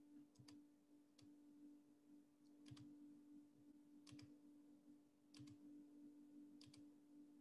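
Near silence: a faint steady hum with faint paired clicks repeating a little over a second apart.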